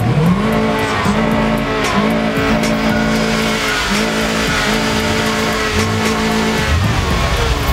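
Car engine revved up and held at high revs, the pitch dipping briefly and coming back about once a second.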